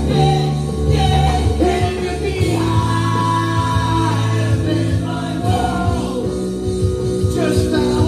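A live band playing a song, with bass guitar, keyboards and a man singing.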